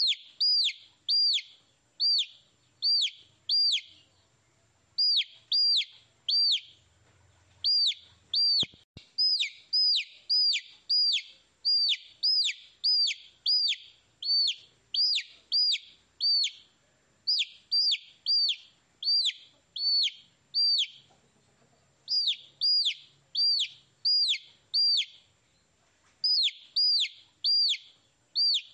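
Baby chicks peeping: high chirps, about one and a half a second, in runs of three or four with short pauses between runs. A single sharp click comes about nine seconds in.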